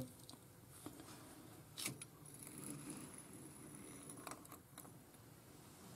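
Faint metal clicks and light scraping as the bearing cap of a VW Beetle swing-axle tube is slid off over the splined axle shaft, with a slightly louder click about two seconds in and a couple more a little past four seconds.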